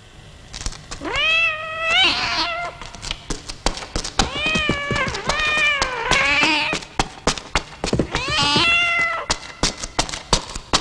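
A cat yowling over and over, about five long drawn-out calls, over quick, hard footsteps on a stone floor.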